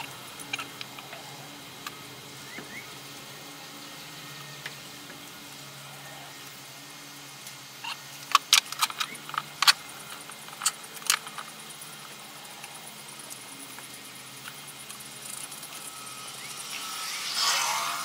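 Hands working a metal bar clamp and a glued cedar box on a plastic-covered bench. Sharp clicks and knocks come in a quick run about eight to eleven seconds in, and a rustling swell follows near the end, over a faint steady hum.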